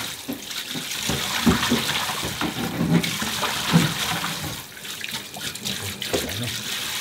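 Kitchen tap running into a stainless-steel bowl in a steel sink, water splashing and swishing as hands rub and rinse pieces of food in it.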